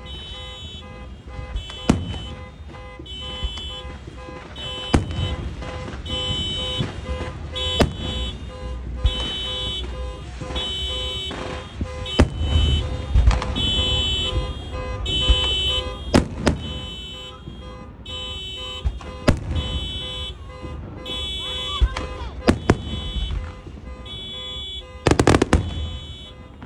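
Car alarm beeping in a steady on-off rhythm, set off by the noise of fireworks. Fireworks bangs break in every few seconds, the loudest a double bang near the end.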